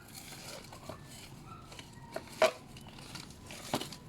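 Handling noise as garden objects are moved: light rustling with a few sharp clicks, the loudest about two and a half seconds in and another near the end.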